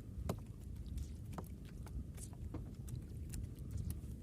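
Steady low rumble of wind and water around a small fishing boat, with scattered light knocks and clicks, about a dozen over the few seconds.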